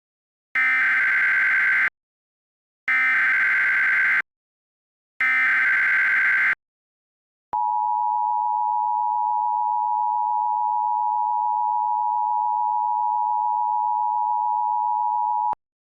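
Emergency Alert System activation: three short bursts of warbling digital header data (the SAME header, sent three times), each about a second and a half long, followed about a second later by the EAS attention signal, a steady two-note tone that holds for about eight seconds and cuts off sharply.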